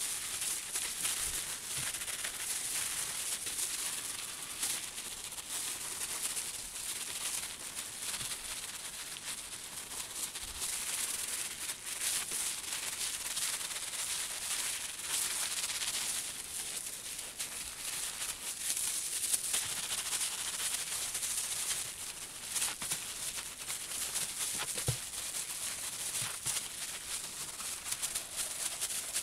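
Hands in plastic gloves rubbing wet, soapy wool felt against bubble wrap: a continuous scratchy, crackly rubbing. This is the fulling of a felt slipper, working it down to size.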